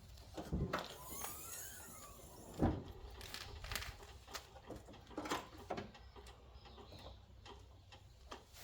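Scattered knocks and light clattering of things being handled, with a stronger thud about half a second in and another near three seconds, and a few faint squeaky gliding sounds about a second in. No engine is running.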